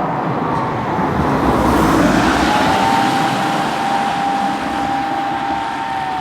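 Japanese emergency vehicle siren wailing as the vehicle passes close by: a slow tone that rises, holds, then sinks near the end. Engine and tyre noise swell loudest about two seconds in.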